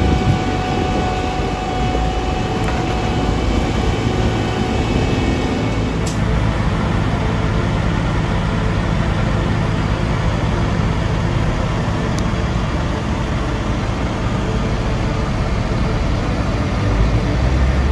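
Steady city street traffic: cars, buses and trucks running by, with a continuous low engine hum.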